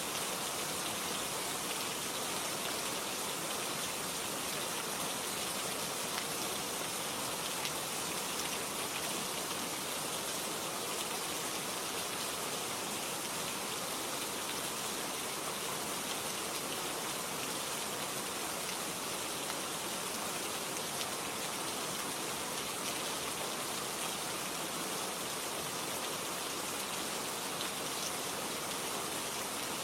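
Steady rain falling, with light scattered drop ticks.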